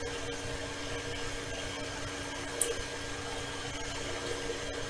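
A steady low electrical hum with an even hiss behind it, and one faint tick a little past halfway.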